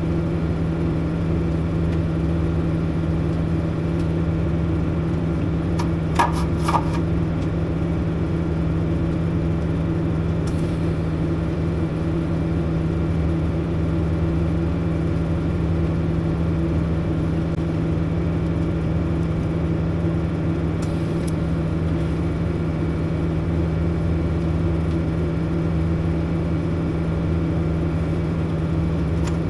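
Steady hum and hiss of a Miller TIG welder running while a stool's steel base is welded, with a few sharp clicks about six seconds in.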